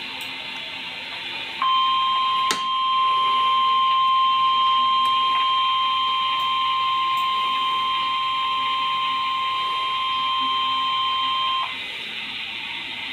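NOAA Weather Radio warning alarm tone: a single steady, high beep held for about ten seconds, starting a couple of seconds in and cutting off sharply, over steady radio hiss. It announces a tornado warning about to be read.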